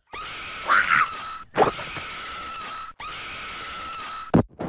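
Steady hiss with a thin high whine, cut off twice. About a second in there is a brief shriek, rising then falling, and another loud burst follows just after.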